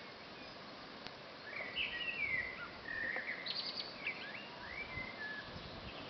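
A songbird singing one phrase of sliding whistled notes with a short high trill in the middle, starting about a second and a half in and ending near the end. Underneath is a steady outdoor hiss.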